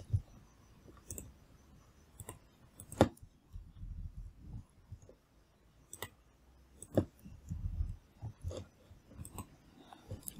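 Scattered computer mouse clicks, single sharp clicks about a second or more apart, the loudest about three seconds in, with faint low desk noises between them.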